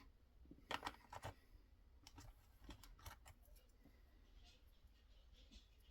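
Faint clicks and taps of small kit parts being handled, with a cluster about a second in and a few more around two to three seconds in.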